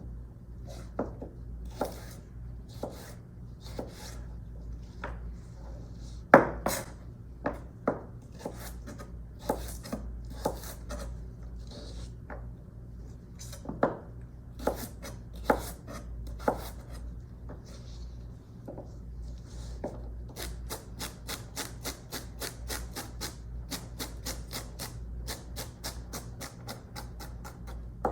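Kitchen knife dicing celery on a cutting board: scattered single cuts at first, then from about two-thirds in a quick, even chopping of about four strokes a second.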